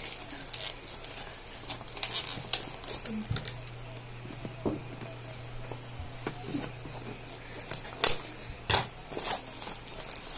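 Handling of a smartwatch's cardboard retail box and plastic wrap: scattered light clicks, taps and crinkles, with two sharper knocks near the end.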